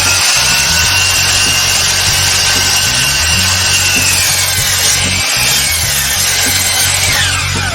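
Electric power saw cutting through a wooden bed-leg piece at a 30-degree angle: a loud steady whine while the blade is in the wood, falling in pitch near the end as the motor winds down.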